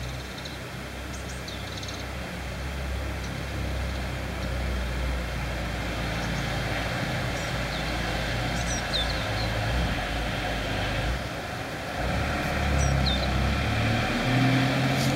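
Outdoor background ambience: a low rumble that swells and fades, louder toward the end, with a few short, high chirps of small birds.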